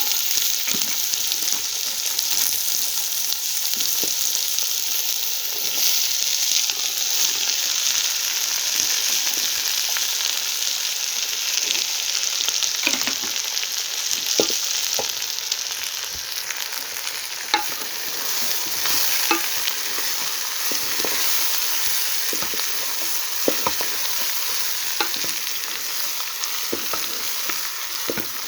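Food sizzling in a hot pan, a steady frying hiss, with a few sharp clicks of a utensil against the pan now and then.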